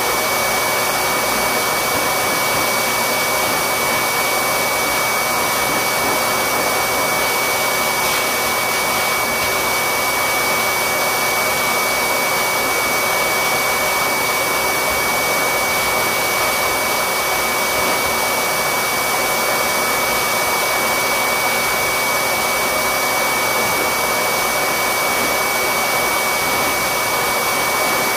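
Electric blower running with a steady rushing noise and a thin high whine, unchanging throughout.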